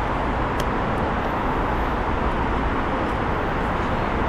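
Petrol running from a pump nozzle into a motorcycle's fuel tank, a steady rushing hiss.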